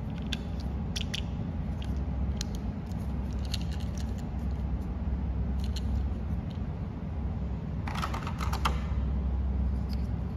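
Hard plastic toy food pieces clicking and tapping together as toy burger slices are handled and stacked, with a denser clatter about eight seconds in. A steady low hum runs underneath.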